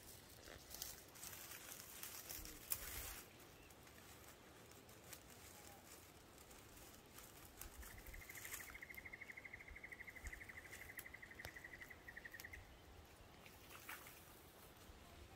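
Faint rustling and handling noise for the first few seconds, with a single sharp click. Then, from about eight seconds in, a high, rapidly pulsed trill held at one steady pitch for about five seconds, from a small creature such as a bird, frog or insect.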